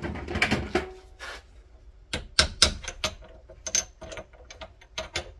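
Sharp metal clicks and knocks as a hammer and a repaired cast-aluminium telescope part are handled against a steel bench vise. A dense rattling cluster comes in the first second, then a dozen or so separate taps.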